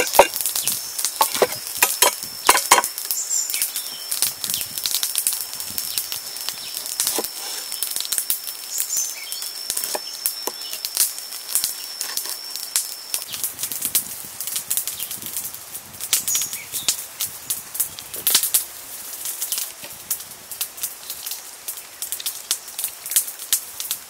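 Wooden pestle pounding chilies and garlic in a wooden mortar in the first few seconds, then sharp knife taps as limes are cut on a board. A thin steady high whine runs in the background until about halfway, with a few short bird chirps.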